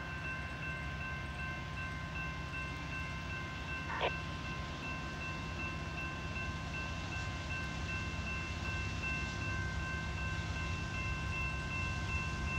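Approaching Norfolk Southern diesel freight locomotives running, a steady low rumble that grows slightly louder near the end. A steady high tone of several notes is held over it, and there is a single sharp knock about four seconds in.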